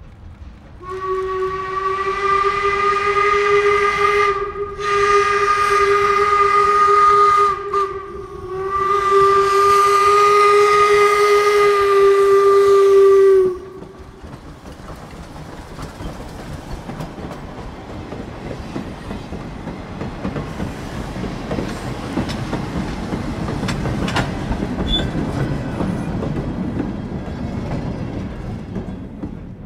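Steam whistle of the replica 4-4-0 steam locomotive No. 17 "York", sounded in three long blasts, the last the longest, ending about 13 seconds in. Then the locomotive and its passenger coaches roll past on the rails with a steady rumble and clatter, loudest about 24 seconds in.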